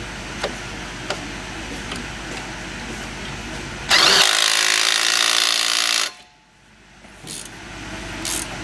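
Small cordless impact wrench hammering for about two seconds about four seconds in, running a nut down on a lower strut-to-knuckle bolt. Before it, a few light metal clicks of wrenches on the bolts.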